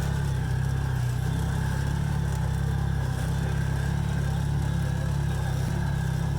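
Vehicle engine running steadily, a low, even drone with no revving.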